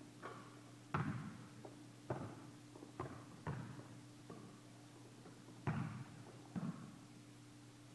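A basketball bouncing on a gym floor: about six separate thuds at uneven spacing, each ringing briefly in the echoing hall.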